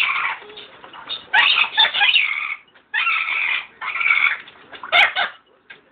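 Pet parrot chattering in about five short, loud bursts while bathing in a water dish.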